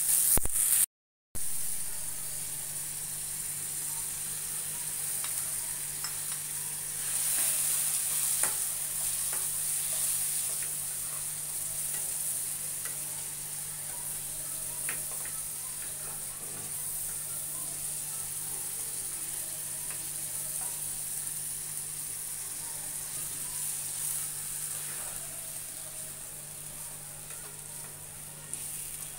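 Onion and spice masala sizzling in oil in a pan, with occasional small taps and scrapes of a spatula stirring it. The sound cuts out briefly about a second in.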